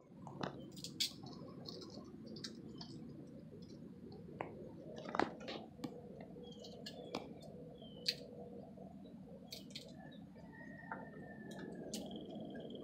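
Nutshells cracking in a man's hands, a series of irregular sharp cracks and clicks, with a few short bird whistles and one longer whistle near the end over a steady outdoor hum.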